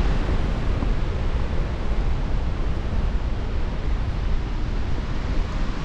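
Loud, steady rush of Helmcken Falls, a waterfall of nearly 500 feet.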